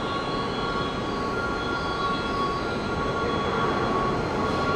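Tobu 10050-series electric commuter train pulling slowly into the platform: steady rolling and running noise with a few steady high-pitched tones over it.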